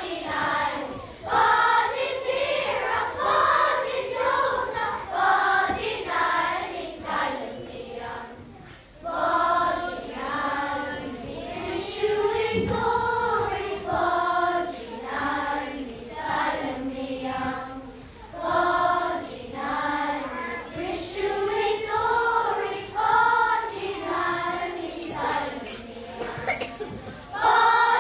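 A children's choir singing a song together, the voices dropping away briefly about eight to nine seconds in.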